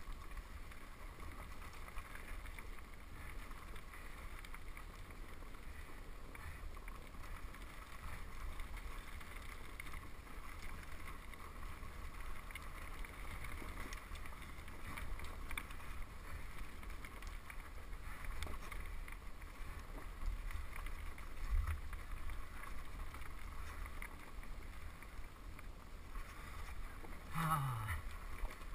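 KTM 250 XC-W two-stroke dirt bike engine running steadily at low throttle, heard through the rider's helmet camera with wind buffeting the microphone. Near the end a brief sound drops sharply in pitch.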